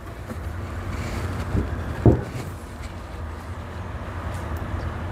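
Steel locomotive axle with its wheel and sprocket set down upright on a wooden board, giving two dull knocks about a second and a half and two seconds in, the second the louder, over a steady low hum.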